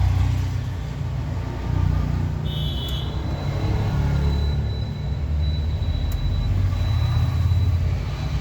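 A low rumble that swells and fades, with a short high tone about two and a half seconds in and a faint steady high whine from about four seconds on.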